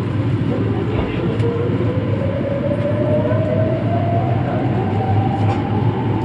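Meitetsu electric train's traction motors whining as it pulls away from a station stop, one tone rising steadily in pitch as the train gathers speed, over a steady low hum inside the driver's cab.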